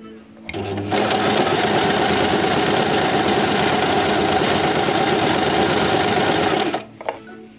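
Singer SM024 electric sewing machine running steadily while stitching a straight stitch through cloth. It starts about half a second in and stops abruptly near the end.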